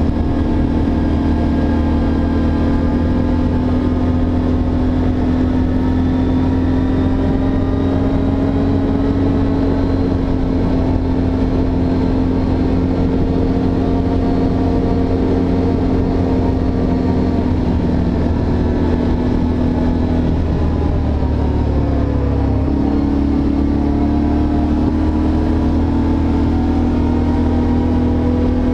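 ATV engine running steadily at trail-riding speed. Its pitch dips about twenty seconds in and then steps back up a couple of seconds later.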